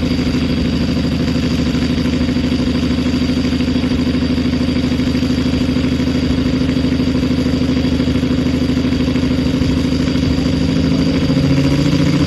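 Garden tractor engine idling steadily and loudly, with a deep, even note. Near the end a second engine's pitch climbs as it revs up.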